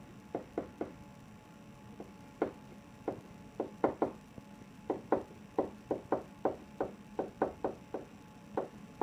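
Pen or marker tip knocking against a whiteboard while a line of words is handwritten: a string of short, irregular taps, two or three a second.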